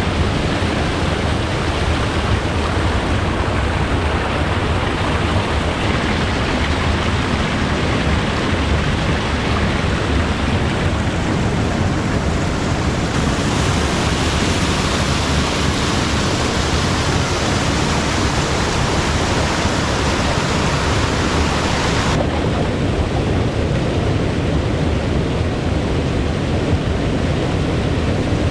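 Steady rushing of flowing water, an even hiss that changes in tone abruptly three times.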